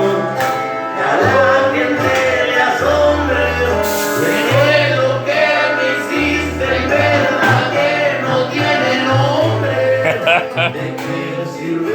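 A song with a lead vocal over a bass line.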